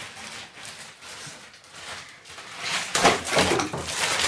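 Bagged ice cubes rustling and clinking, then, about three seconds in, louder clattering and splashing as the ice is tipped into a bathtub of water.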